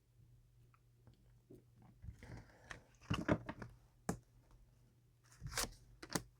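Tarot cards being handled: a few short rustles and taps, the loudest a little after the middle, with a sharp click just after it and another rustle near the end.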